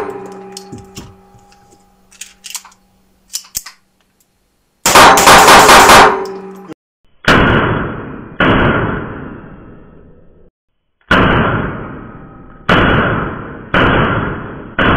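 .22 LR Manurhin Walther-pattern pistol fired in an indoor range. About five seconds in comes a rapid string of shots, then six single shots spaced about a second apart, each followed by a ringing echo that dies away.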